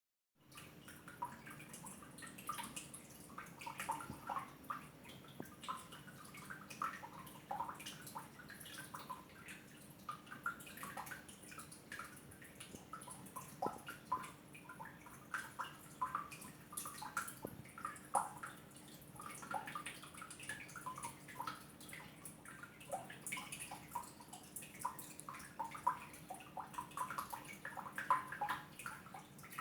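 Water dripping and splashing in small irregular plops, over a steady low hum.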